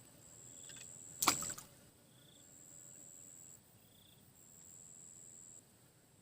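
Insects buzzing in a high steady tone, in repeated calls of about a second each with short gaps between. A single sharp knock about a second in is the loudest sound.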